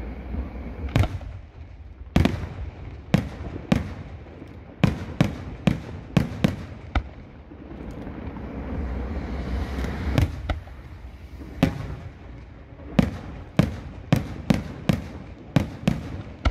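Aerial firework shells bursting: an irregular run of sharp bangs, about twenty in all, with a lull near the middle filled by a hiss before the bangs pick up again.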